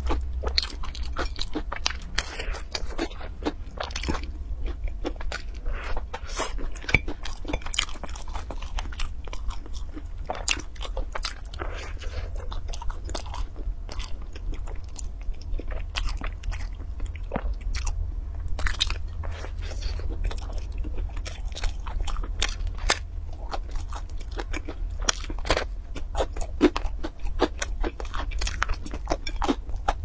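A person chewing and biting into cheese pizza, close-miked: a quick, irregular run of crunching bites and chewing clicks, over a steady low hum.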